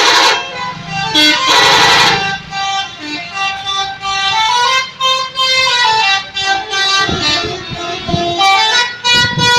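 Multi-tone 'telolet' bus horn playing a tune as a run of held notes that step up and down in pitch. A brief loud hissing burst comes about one and a half seconds in.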